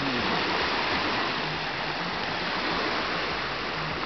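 Steady rushing wash of sea surf at the shore, an even roar of water with no separate wave breaks standing out.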